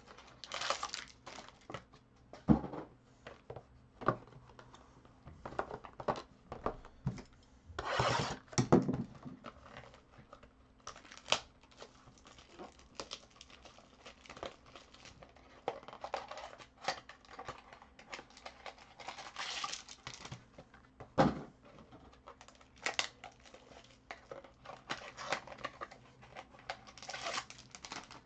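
Foil trading-card pack wrappers crinkling and tearing as packs are opened and handled, with several sharp clicks and taps in between.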